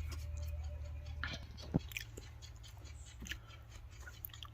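Someone chewing a salted piece of roasted guava, with faint scattered crunches and clicks, one sharper click about two seconds in, over a steady low hum.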